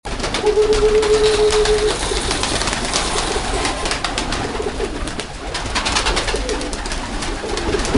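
A flock of domestic pigeons cooing, with wings flapping and clattering as birds take off and land around the feeders. A steady tone sounds for about a second and a half near the start.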